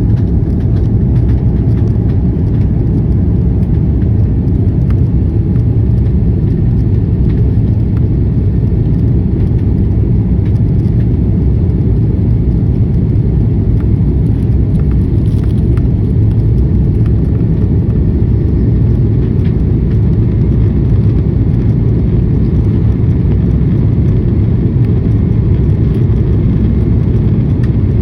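Steady low rumble of an Airbus A330-300 airliner heard from inside the cabin: engine and airflow noise, even and unchanging.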